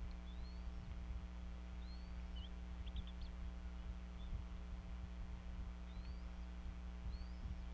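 Bald eaglet chicks giving thin, high rising peeps every second or two, with a quick run of short chirps about three seconds in. Under them runs a steady electrical hum, with soft low knocks scattered through.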